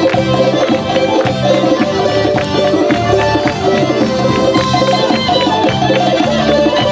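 Caucasian folk dance music in lezginka style, a fast steady drum beat under a held melody.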